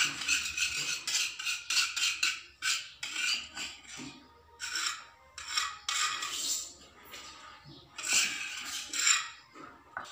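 A metal spoon scraping freshly ground spice paste off a stone grinding base and its round hand grinding stone. Quick repeated scrapes for the first three seconds or so, then slower single strokes about a second apart.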